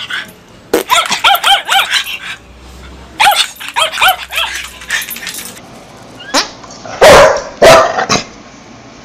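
Dog yipping: two runs of quick, high, rising-and-falling yips. About seven seconds in come two loud barks close to the microphone, the loudest sounds.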